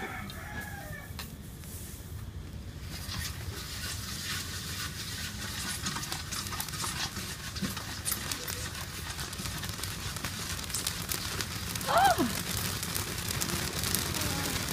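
Rice grains popping in hot sand in a large wok, a fine crackle that grows denser and louder from a few seconds in, over a steady low hum. A rooster crows once near the end.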